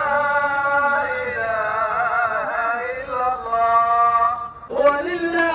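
A man's voice chanting in a slow Middle Eastern style, holding long notes with wavering ornaments, breaking off briefly near the end before going on.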